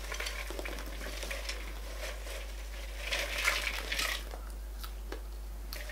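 Popcorn rustling and crunching in a glass bowl as the bowl is tipped and shaken and popcorn spills out, with a denser cluster of rustles about three to four seconds in.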